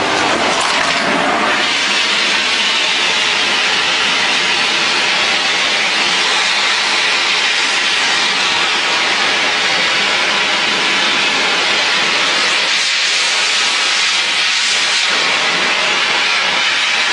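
Gas brazing torch flame hissing steadily while a steel bicycle frame or fork joint is brazed.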